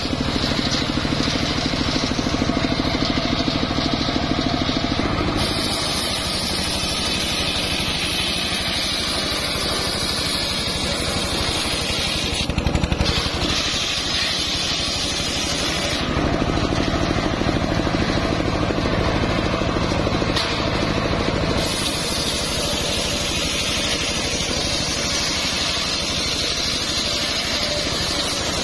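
Home-built engine-driven circular sawmill running, its large blade ripping planks of golden-yellow jowar wood lengthwise over the steady drone of the engine. The cutting noise changes in tone several times, with a brief louder burst about halfway through.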